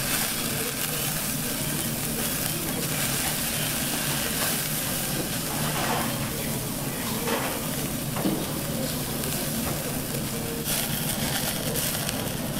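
Offal (horumon) sizzling on a wire grill over a charcoal shichirin, its dripping fat flaring up in flames, with a steady hiss and a few short pops.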